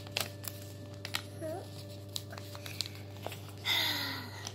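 A sheet of paper crinkling and rustling as it is handled and folded into a paper boat, with scattered short crackles.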